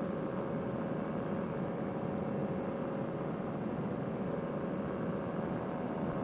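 Fresh Breeze Monster paramotor engine on a Fly-Pod trike running at a steady cruise throttle in flight: a steady drone with a held tone and no change in pitch.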